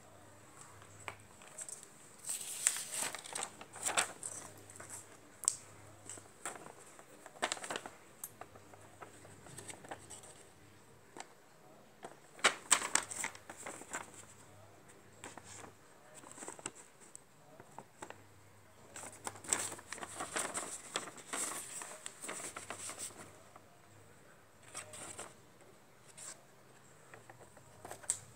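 Handling noise: a sheet of lined paper rustling and being moved, along with the plastic glue gun housing and its wires being handled, in irregular bunches of rustles and small clicks.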